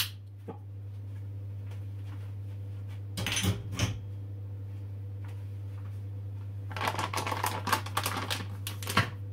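Kitchen handling sounds: a sharp click as a cinnamon shaker jar is worked over a glass mixing jug, a brief rattle about three seconds in as the jar is moved away, then about two seconds of crinkling as a plastic ingredient packet is picked up and handled near the end, all over a steady low hum.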